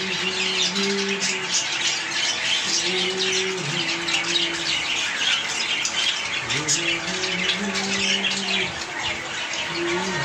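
Many small cage birds, finches and budgerigars, chirping and chattering together in a constant dense twitter. A low humming tone comes and goes underneath several times.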